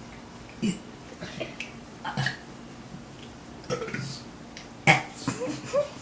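A girl burping letters of the alphabet: a series of short, separate burps about a second apart, the loudest about five seconds in.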